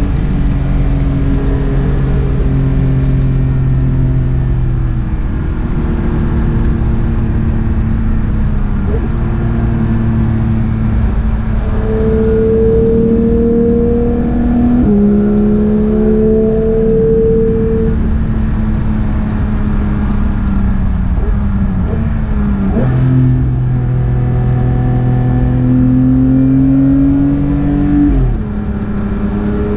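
Porsche 911 GT3 (992) 4.0-litre naturally aspirated flat-six under load on track, its note climbing and falling with several quick PDK gear changes.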